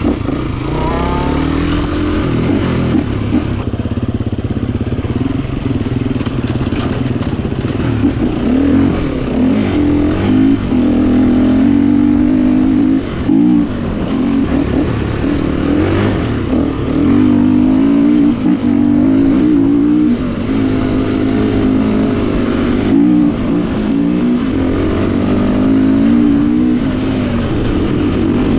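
Gas Gas 350 dirt bike's four-stroke single-cylinder engine running under way, its revs rising and falling again and again as the throttle opens and closes.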